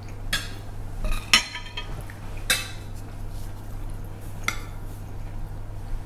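Metal spoons and forks clinking and scraping on ceramic dinner plates as people eat: a few separate sharp clinks, the loudest cluster about a second and a half in, over a steady low hum.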